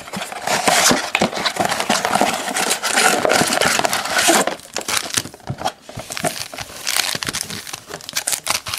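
Plastic wrapping on a box of trading-card packs crinkling and crackling as it is handled and torn open, with a brief lull about five to six seconds in.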